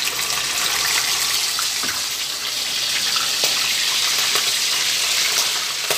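Hot cooking oil sizzling in a frying pan: a steady hiss with scattered small pops.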